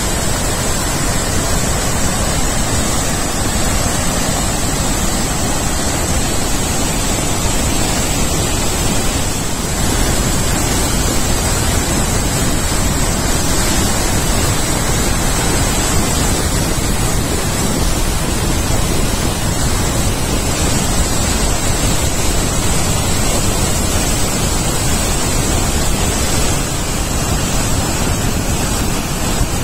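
Murchison Falls' waterfall roaring: a loud, unbroken rush of water, with a thin steady high tone on top.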